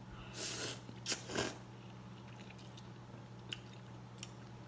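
Ramen being eaten close to the microphone: a brief slurp about half a second in, then two sharp clicks and a few faint ticks of chewing.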